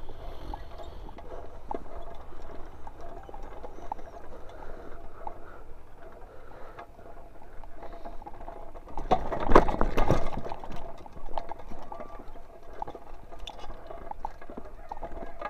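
Mountain bike rolling down a dirt single-track trail: tyres crunching over dirt and stones, with irregular rattles and clicks from the bike over a steady low rumble. It is loudest and most clattering through a rough stretch about nine to ten seconds in.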